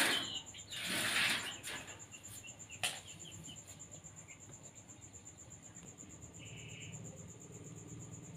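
A cricket trilling steadily: a fast, even, high-pitched pulsing. In the first second and a half come two short hissing noises, and a sharp click about three seconds in.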